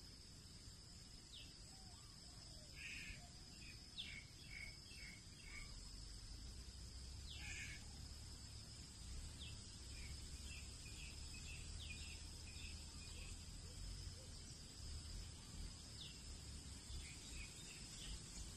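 Faint outdoor ambience: a steady high insect drone, scattered short high chirps of small birds, and a low rumble underneath.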